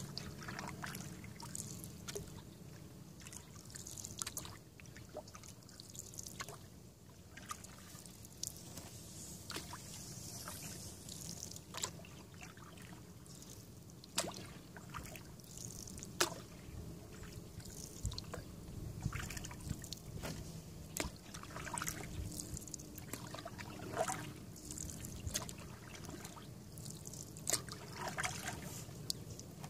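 Canoe paddling on calm water: the paddle dipping and pulling every few seconds, water trickling and dripping off the blade, with occasional light knocks.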